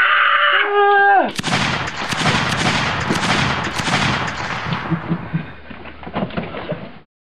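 A high wailing cry for about a second, falling in pitch at its end. Then a sudden loud burst of rapid bangs and crashing noise that dies away over a few seconds into scattered clicks, and cuts off abruptly.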